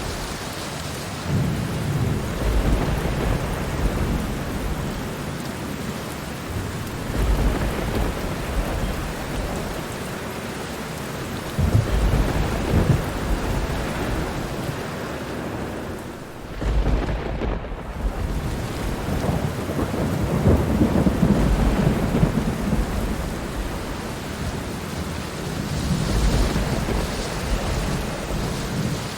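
Steady rain with thunder rolling low several times, the longest roll about two-thirds of the way through.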